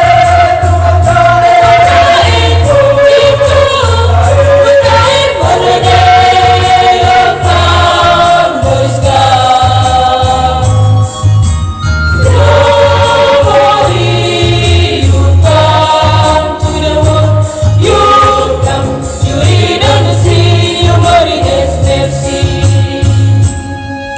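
Choir singing a Christian song over band accompaniment with a pulsing bass.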